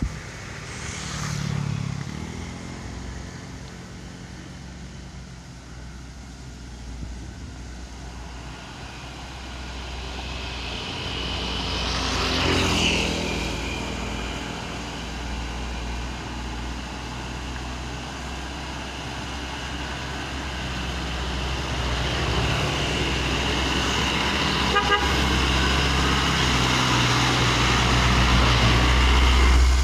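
Trucks driving past on a road with a steady engine rumble. One passes loudly about 12 seconds in, another grows louder toward the end, and a horn sounds in toots.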